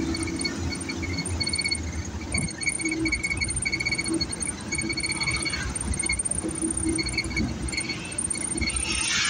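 Car in motion heard from inside the cabin: a steady low rumble of engine and road, with repeated runs of rapid, high-pitched chirps at one fixed pitch coming and going.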